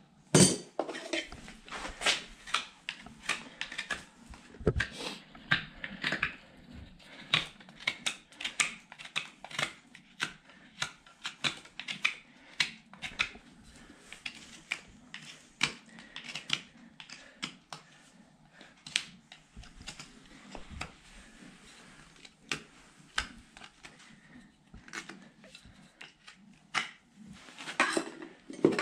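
Hoof knife paring a horse's hoof: irregular crisp cutting and scraping strokes, often one or two a second, the loudest about half a second in.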